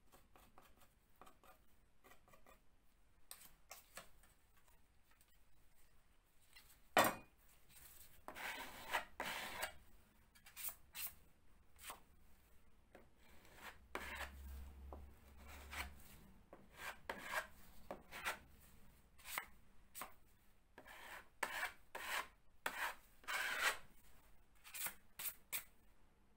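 Metal filling knives scraping filler across a plasterboard wall in many short strokes, pressing it into small holes and smoothing it flat. A single sharp knock about seven seconds in is the loudest sound.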